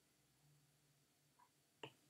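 Near silence, with one faint click near the end: a stylus tapping on a tablet's glass screen.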